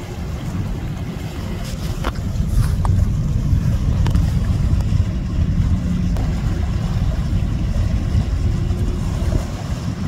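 Wind buffeting the microphone, heard as a low, fluctuating rumble that swells a little in the middle, with a few faint ticks about two to four seconds in.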